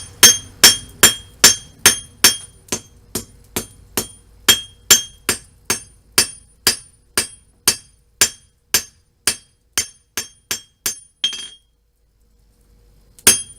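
Steady hand-hammer blows on steel at the anvil, about two and a half a second, each strike ringing with a bright metallic tone. The hammering stops for a moment near the end, then a few more blows follow.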